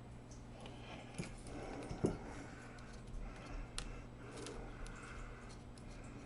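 Faint handling noise of small laptop parts and tools: a few light clicks and taps with soft rustling, the sharpest click about two seconds in, over a steady low hum.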